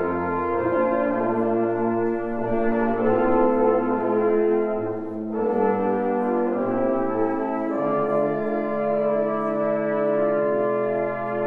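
Wind band of saxophones, trumpets, trombones and euphoniums playing slow, held chords, with a short break between phrases about five seconds in.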